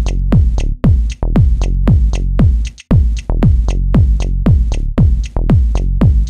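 Electronic background music with a steady kick-drum beat, each beat a deep falling thud, a little over two beats a second, with short high ticks between them.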